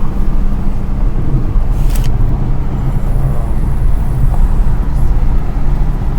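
Road and engine noise of a moving car heard from inside the cabin: a steady low rumble, with one sharp click about two seconds in.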